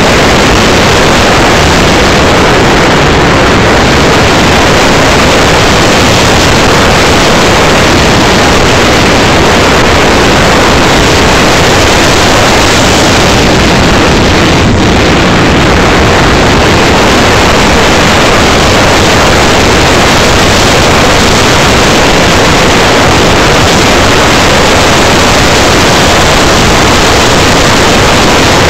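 Loud, steady rush of wind and motor noise from an RC SU-25 model jet in flight, picked up by a camera riding in its canopy and overloading the microphone. The sound briefly dulls about halfway through, then carries on unchanged.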